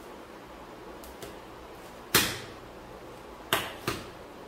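A few sharp knocks and clicks of roasted corn cobs and a lemon being handled against the kitchen counter, the loudest about two seconds in, over a faint steady background hum.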